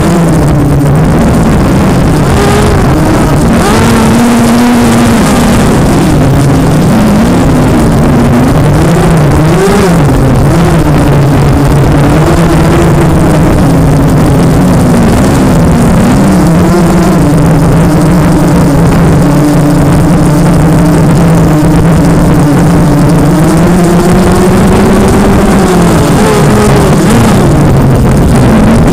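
ZMR250 racing quadcopter's brushless motors and propellers buzzing loudly as it flies, their pitch rising and falling constantly with the throttle, over a heavy rush of wind noise picked up by the onboard camera.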